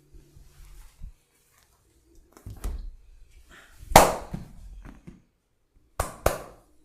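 Hands striking the body during a barber's upper-body massage: a few sharp slaps, the loudest about four seconds in, and two quick ones close together near the end.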